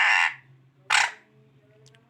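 Parrot squawking: a long harsh screech that breaks off shortly after the start, then one short squawk about a second in.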